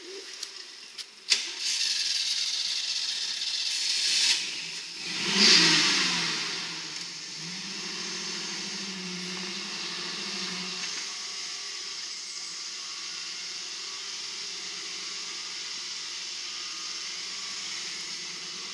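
A four-wheel-drive's engine revs hard, loudest about five and a half seconds in, with a sharp click just after the first second, then runs steadily while the stuck vehicle is pulled free.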